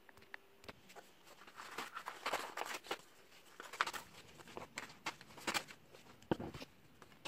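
Paper scraps being handled and shuffled on a wooden table: irregular rustling and crinkling with small clicks, and a couple of soft knocks near the end as pieces are set down.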